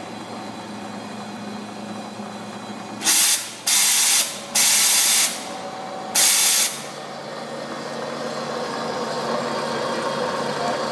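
Four short, loud blasts of compressed air hissing, from the Bridgeport Explorer mill's pneumatic power drawbar cycling, over the machine's steady hum. The hum grows louder in the second half.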